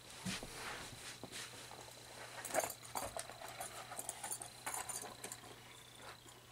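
Faint handling noises: soft rustles and small clicks in a few short clusters, over a low steady hum.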